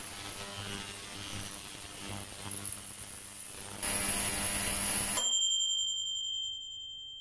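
Ultrasonic cleaner running with a buzzing hum and a high hiss, louder about four seconds in, then cutting off suddenly about a second later as its mechanical timer runs out. A timer bell dings once and rings on, fading slowly.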